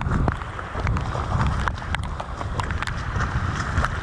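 Wind rumbling on the microphone with footsteps in wet mud, and many irregular sharp clicks and knocks.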